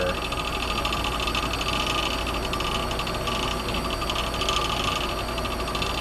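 Steady machine hum with an even hiss over it, holding level without a break.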